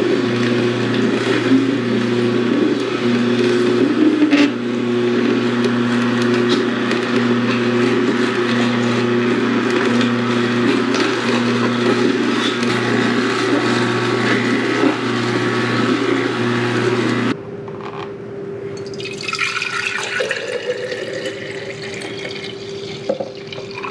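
Nama cold press juicer's motor running with a steady hum, then switched off abruptly about two-thirds of the way through. Juice is then poured into a glass, with a pitch that rises as it fills.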